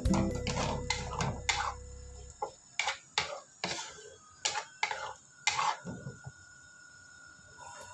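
Irregular sharp clinks and knocks of kitchenware, a utensil striking a pan or dish, about a dozen over several seconds, with background music fading out in the first two seconds.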